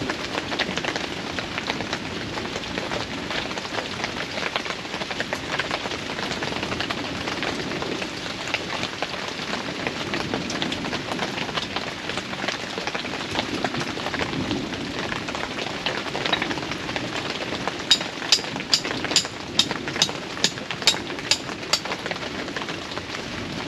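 Heavy rain and hail pelting down, a steady rush dense with sharp ticks of hard impacts. Near the end, a quick, evenly spaced run of about ten sharper clicks, roughly three a second, stands out above it.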